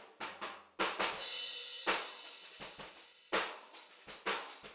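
Acoustic drum kit played in a loose, uneven groove: kick and snare strokes, with three heavier accents about a second apart that leave a cymbal wash ringing after them.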